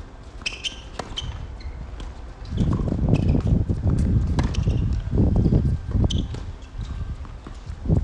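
Tennis rally: sharp pops of a tennis ball struck by rackets and bouncing on a hard court, one every second or so, with a loud low rumble coming and going from about a third of the way in.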